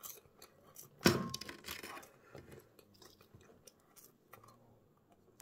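A bite into a crunchy snack about a second in, followed by crunchy chewing that fades over the next couple of seconds.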